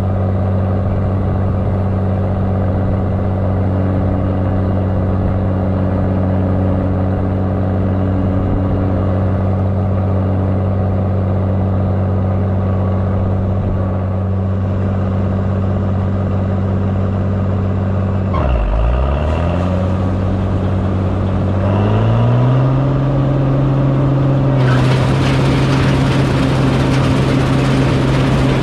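Heavy farm machine engine running steadily, then dropping sharply in pitch about two-thirds of the way through and climbing back to a higher, steady speed. Near the end a loud rushing noise joins the engine.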